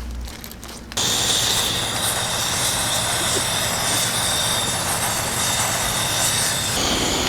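Steady road and wind noise of a car driving, starting suddenly about a second in.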